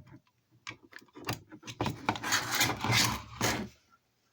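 A few sharp clicks as power is connected to a Chinese pan-and-tilt IP camera, then a couple of seconds of rasping mechanical whirring. This fits the camera's small pan-tilt motors driving it round as it powers up.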